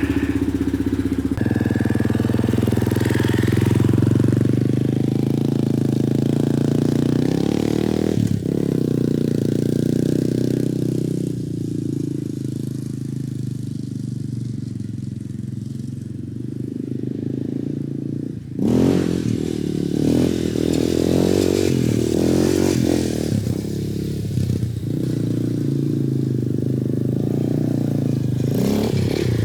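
Yamaha Raptor 250 ATV's single-cylinder four-stroke engine running and being revved while the quad is ridden. The engine's pitch and loudness shift, with sharp changes about 8 seconds in and again near 19 seconds, and a quieter stretch in between.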